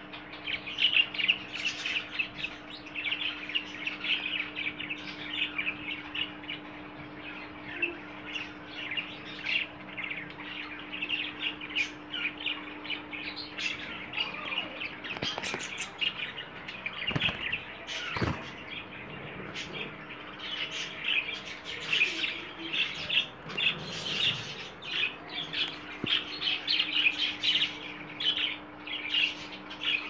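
Many small aviary finches chirping continuously, a dense twitter of short overlapping calls.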